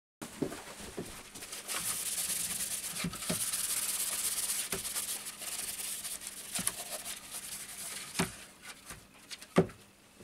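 Cloth rag wiping oil stain over a plywood vase: a swishing rub, strongest in the first half, then fainter. Several light knocks as the vase is handled on the bench, the sharpest near the end.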